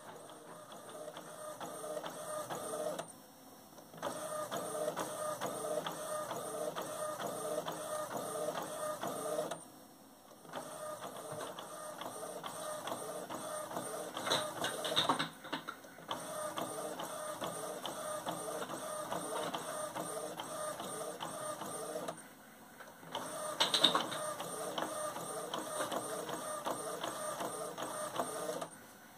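Epson inkjet printer printing a page: the print head carriage runs back and forth in a steady repeating whir, broken a few times by short lulls as the paper steps forward, with a couple of sharper clatters partway through.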